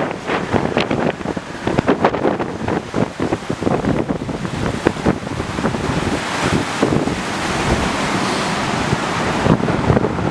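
The flooded River Cree rushing past, with wind buffeting the microphone in irregular gusts.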